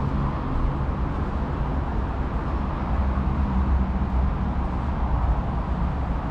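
Steady low rumble of street traffic, with a faint engine hum under it and no distinct events.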